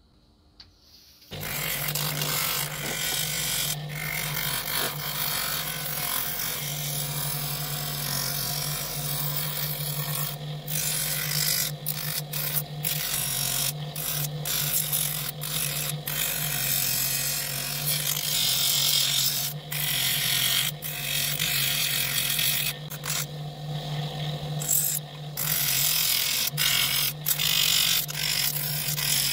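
An electric power tool switches on about a second in and runs steadily with a low motor hum, its working noise against the part breaking off briefly many times as the piece is lifted and pressed back.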